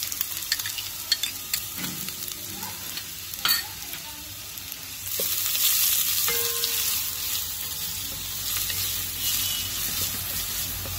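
Chopped onion and garlic sizzling in hot oil in a stainless steel pan while a spatula stirs them, scraping and tapping against the pan a few times. The sizzle swells about halfway through as the onions are turned.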